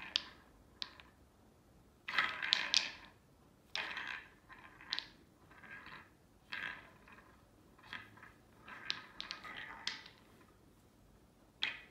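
Wooden balls clattering and rolling in the tracks of a wooden three-tier tower cat toy as a kitten bats at them, in irregular bursts of rattling with sharp clicks and short quiet gaps between.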